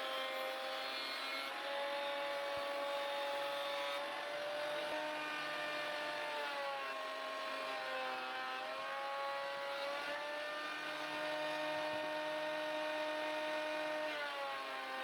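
Electric thickness planer running as boards are fed through: a steady motor whine whose pitch drops and recovers several times as the cutter takes load and then frees up.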